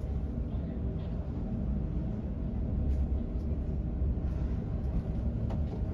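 Heavy diesel engine running with a steady low rumble, with a few faint knocks.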